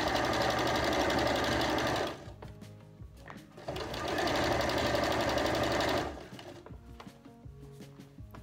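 Janome electric sewing machine stitching a seam through layered cotton fabric, running steadily in two bursts of about two seconds each with a pause between, then stopping about two thirds of the way through.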